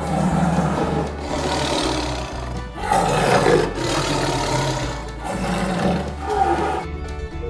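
An animal giving about four long, rough calls over background music.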